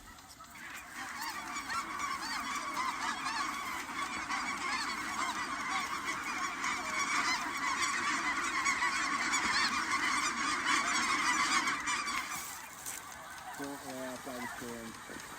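A large flock of snow geese calling, many birds honking over one another in a dense, steady clamour. It swells in about half a second in and fades away near the end.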